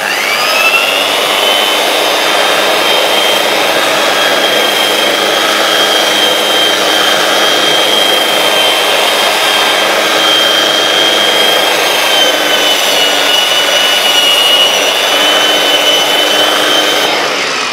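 Handheld electric sander with a round pad and dust-extraction hose, fitted with fine 240-grit paper, sanding a hardened siloxane coating to polish it smooth. It spins up with a rising whine at the start, runs with a steady high whine, and winds down near the end.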